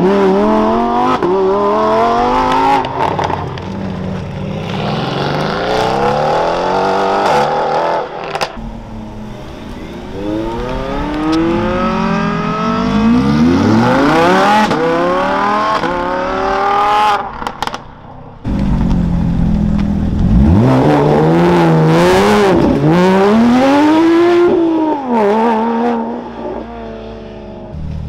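Several supercars accelerating hard away one after another, engine pitch climbing through the gears with a brief drop at each upshift. First a Lamborghini Huracán Performante's V10, then an Audi R8's V10. In the later part a car's engine is revved up and down several times.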